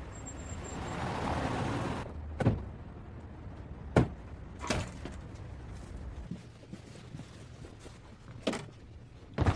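A rushing, rustling noise for about two seconds, then a handful of sharp knocks and clunks over a low rumble, the loudest about four seconds in.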